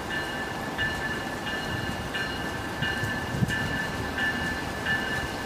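Bell ringing steadily, about one strike every 0.7 seconds, over the low rumble of an approaching NJ Transit commuter train.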